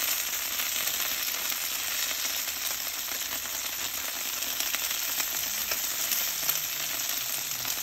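Bacon-wrapped jalapeño poppers frying on a Blackstone flat-top griddle: a steady sizzle of bacon in its grease, with a fine, continuous crackle.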